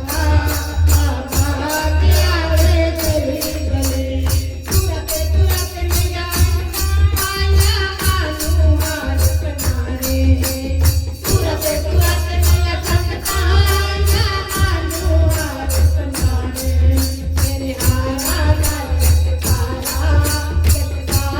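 A Hindu devotional bhajan for the Mother Goddess sung by a kirtan group, a voice carrying the melody over a steady drum beat and evenly repeating tambourine-like jingles.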